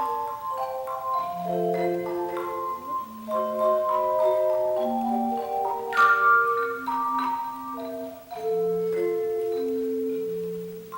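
Tone chime ensemble playing a melody: handheld aluminium chime bars struck by their built-in hammers, the notes ringing on and overlapping into chords. A brighter, louder struck chord comes about six seconds in.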